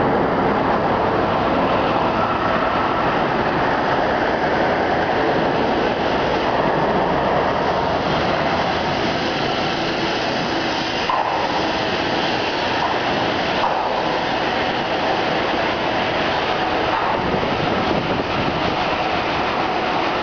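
Steady rumbling noise of a bicycle rolling over pavement, picked up by a camera mounted on the bike.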